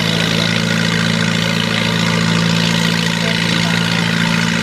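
Farm tractor engine idling steadily at a pulling track, an even low drone with no revving.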